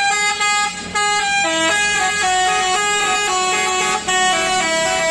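Indonesian tour bus's "telolet" musical air horn playing a quick, continuous tune of stepped notes, often several at once.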